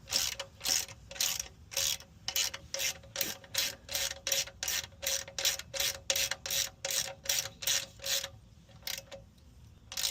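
A worn hand ratchet clicking in quick, even strokes, about three a second, as it runs in a 17 mm magnetic oil drain plug. The run of strokes stops near the end, followed by a couple of single clicks.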